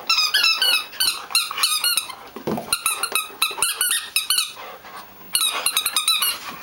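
Dog chewing a squeaky toy, setting off rapid runs of short, high squeaks, with a brief pause in the middle.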